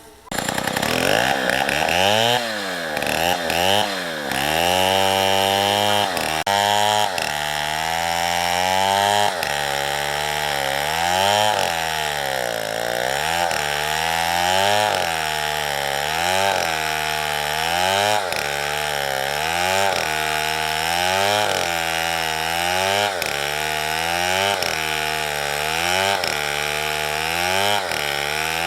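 Small chainsaw cutting wood. Its engine starts suddenly, then its pitch sags and recovers over and over as the chain bites into the cut, settling into a steady rhythm of about once a second.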